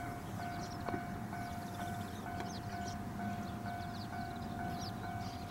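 Railway level-crossing warning bell ringing in even repeated dings, about two a second, as a train approaches. Small birds chirp over a low steady rumble.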